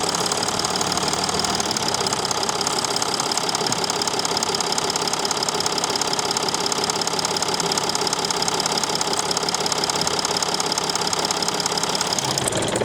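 Mercedes Sprinter 219 CDI's V6 diesel engine running steadily with a fast, even clatter; the sound changes abruptly just before the end.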